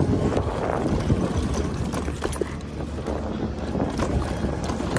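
Electric mountain bike rolling fast down a dirt trail: tyre noise with irregular knocks and rattles as it runs over bumps, and wind on the microphone.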